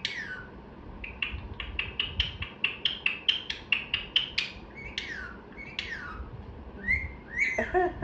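Pet parrot chirping: a fast run of short, sharp chirps at about five a second, then two longer calls that fall in pitch, and a few chirps near the end that rise and fall.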